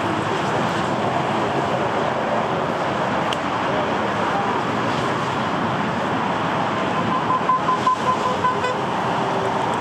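Airbus A320-214's CFM56 jet engines rumbling steadily through the landing rollout. About seven seconds in, a short run of high beeping toots sounds over the rumble.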